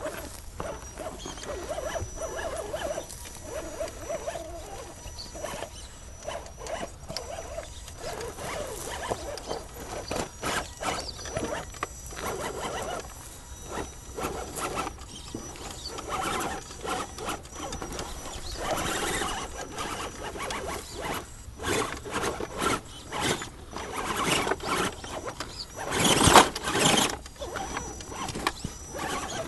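Axial SCX10 radio-controlled rock crawler working up rock: its drivetrain whines in short spurts, and its tires click and scrape on the stone. About 26 seconds in comes a louder burst of scraping noise.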